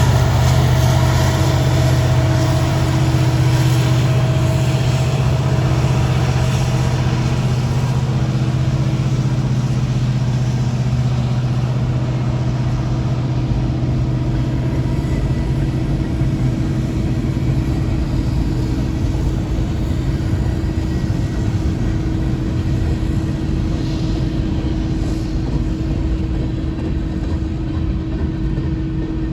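An engine running steadily with a low hum and a few held tones, slowly growing quieter.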